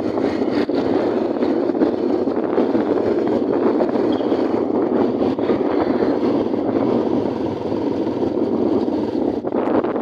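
Steady rush of wind and road noise while riding on a motorbike, with the motorbike's engine running underneath.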